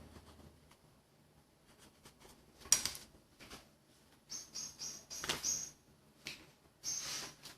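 Kitchen handling noises while working pizza dough in a baking tray: one sharp knock about three seconds in, then several short scraping bursts.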